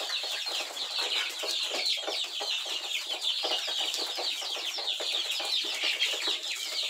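A large flock of young brown chickens peeping and chirping all at once: a dense, steady chorus of many short, high, falling calls.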